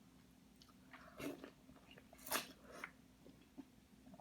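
Close-up eating sounds: a person biting and chewing sauce-coated mini corn on the cob, with a few short wet smacks, the loudest about a second in and again about two and a half seconds in.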